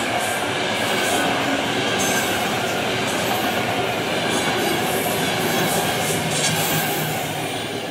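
Passenger train coaches running past at speed: a steady loud rush and rumble of wheels on rails, with a few short high squeals.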